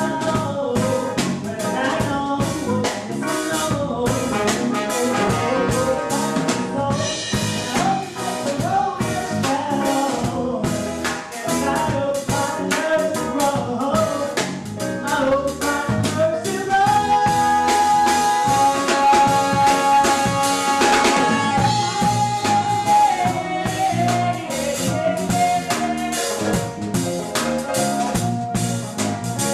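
Live band playing a reggae song: a steady drum kit beat with bass, guitar, piano, trumpet and bass trombone under a lead singer. Around the middle, one long note is held for several seconds.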